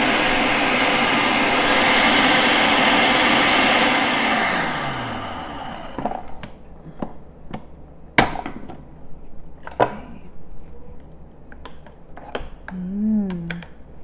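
Electric food processor running, pureeing boiled cauliflower into a smooth sauce. About four and a half seconds in, the motor is switched off and winds down with a falling pitch. A series of sharp clicks and knocks follows.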